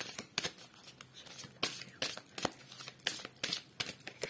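A deck of tarot cards being shuffled by hand: short swishes of card against card, two or three a second, that stop near the end.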